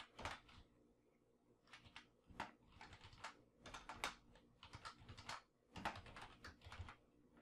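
Faint typing on a computer keyboard: irregular runs of key clicks, with a pause of about a second near the start.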